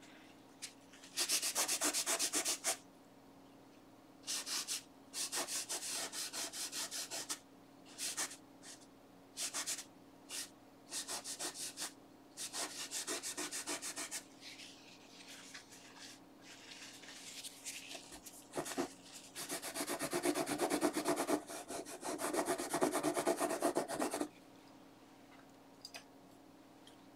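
A cloth rag scrubbing over textured canvas in bursts of quick back-and-forth rubbing, with a longer spell of rubbing near the end. It is wiping the burnt umber tone off to lift out a light egg shape.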